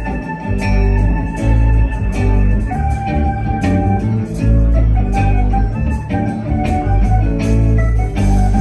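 Live band playing an instrumental passage: sustained organ chords over a heavy bass line and steady drum hits.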